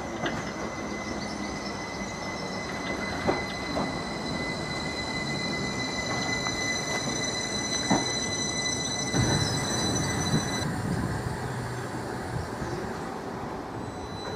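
Train moving on the rails: a steady rumble under a high-pitched whine, with a few sharp knocks and a heavier rumble about two-thirds of the way through.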